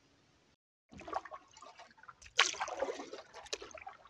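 A short silence, then a canoe paddle working through calm lake water: water trickling and dripping off the blade, with the loudest stroke splash a little past halfway.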